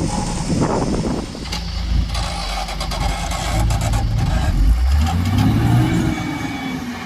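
Diesel engine of a JCB 3DX backhoe loader running under load, with a few light knocks in the first half. About five seconds in the engine revs up and then falls back.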